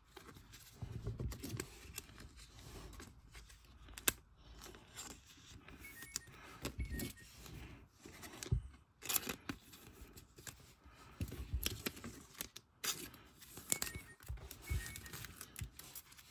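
Hockey trading cards being handled: cards sliding, shuffling and tapping against each other and onto a playmat, in irregular rustles and small clicks.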